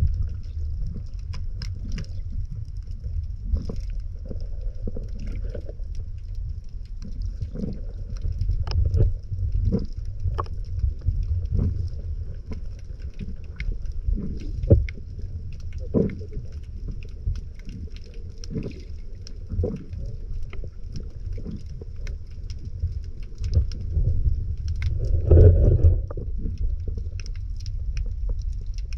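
Underwater sound picked up by a submerged camera: a steady low rumble with irregular clicks and knocks scattered through it, and a faint steady high hiss. The rumble swells briefly near the end.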